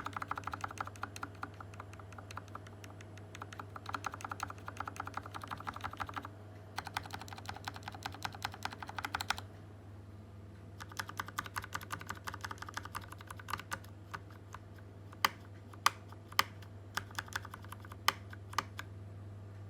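Typing on a Tecware Phantom Elite TKL mechanical keyboard with Kailh Speed Silver linear switches. There are three runs of fast keystrokes with short pauses between them, then a handful of separate, louder key strikes in the last few seconds, over a low steady hum.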